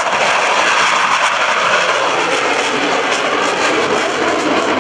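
Jet noise from a pair of F/A-18 Hornet fighters climbing out together after a formation takeoff: a loud, steady roar whose low rumble drops in pitch over the first two seconds.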